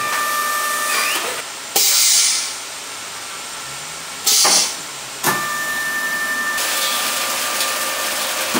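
NG-61MS mattress compression packing machine running with a steady mechanical noise and a faint whine, broken twice by short, loud bursts of hissing air, about 2 and 4.5 seconds in, as its pneumatic cylinders vent.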